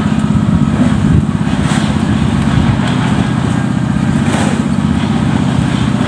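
A small engine of concrete-pouring site machinery running steadily at an even speed, a low, constant drone.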